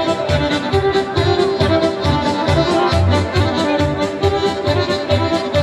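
Balkan folk kolo dance music with a fast, steady beat.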